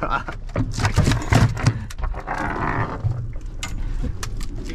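A quick run of knocks and thumps on a fiberglass boat deck, then a short rushing noise about two seconds in, and a few scattered clicks near the end.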